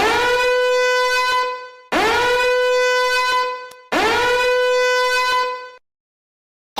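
A horn sound effect blown three times: three identical blasts of about two seconds each, on one steady note that scoops up sharply at the start of each.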